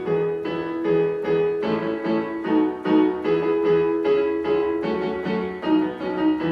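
Piano playing a simple tune at a steady, even beat, about two notes a second, as accompaniment for a clapping activity.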